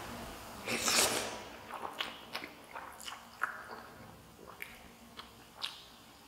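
A person eating spicy instant noodles: one loud slurp of noodles about a second in, then chewing with many short wet mouth clicks and smacks.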